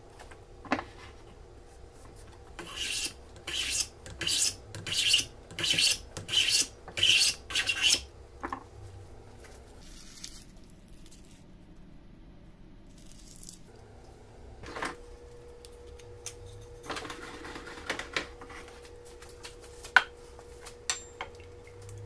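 About a dozen quick, dry scraping strokes of an edge tool shaving a thin boxwood strip, roughly two a second. Later come a few sharp knocks and a softer stretch of scraping.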